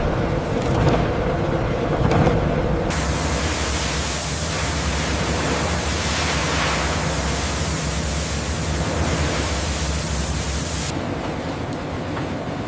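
Steady factory machinery noise. About three seconds in it changes to a broad, even hiss over a low hum, lasting about eight seconds, then drops back to duller machine noise with scattered clicks.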